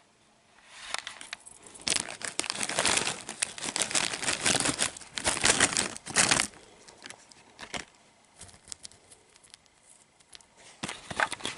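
A small plastic bag of dry dog kibble crinkling and rattling as it is handled and shaken out, the pieces pouring onto carpet. It builds over the first couple of seconds and stops suddenly after about six seconds, followed by a few faint clicks as the pile is touched.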